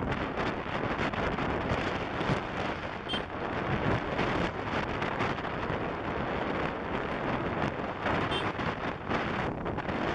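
Steady wind buffeting the microphone of a moving motorbike, with the bike's running noise beneath it.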